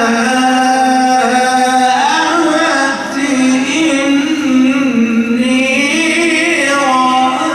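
A man reciting the Quran in a slow, melodic chant, holding long drawn-out notes that rise and fall in pitch, with a brief break about three seconds in.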